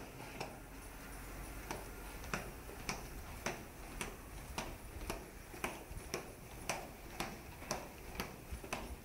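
Footsteps at a steady walking pace, a sharp click about twice a second.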